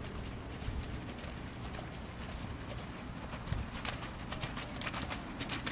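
Hoofbeats of a horse cantering on a sand arena. They grow louder and sharper about four seconds in as the horse passes close.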